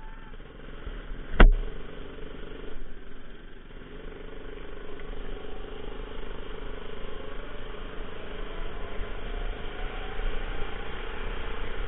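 Rental go-kart's engine running as the kart pulls away from standstill and drives onto the track, gradually getting louder. A single sharp knock about a second and a half in.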